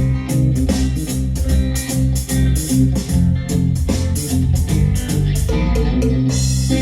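Guitar-led band music with bass and a steady drum beat, played loudly through a TOPP PRO VA42.12 active column speaker system with a 12-inch subwoofer, streamed over Bluetooth from a phone. The bass is heavy, and the drums drop out near the end while the chords hold.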